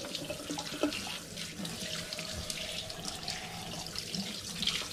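Kitchen sink pull-out spray tap running, its stream spattering over a whole raw chicken held under it: a steady hiss of running water.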